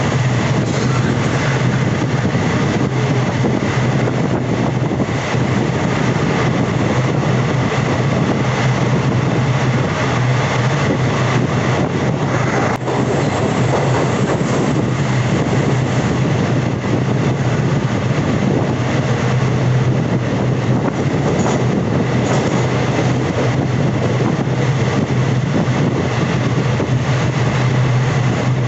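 Passenger express train running steadily, heard from on board: a continuous rumble of the coaches' wheels on the rails, with one short sharp click about halfway through.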